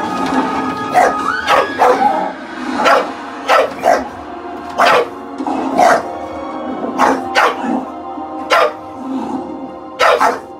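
Bulldog barking repeatedly at the television, about a dozen loud barks roughly a second apart, over film music playing from the TV.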